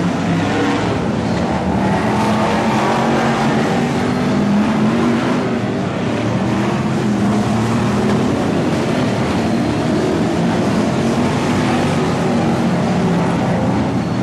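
BriSCA F1 stock cars' V8 engines running hard as the cars race round the oval, a continuous loud engine drone that swells and eases a little as cars pass.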